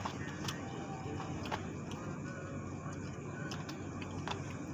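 A metal spoon clinking against a ceramic bowl of noodle soup, about five sharp clicks spaced irregularly, over a steady low hum.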